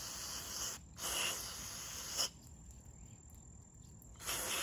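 Aerosol can of mass airflow sensor cleaner spraying onto a car's MAF sensor wires in short bursts of hiss: one cuts off just under a second in, a second lasts about a second, and a third starts near the end.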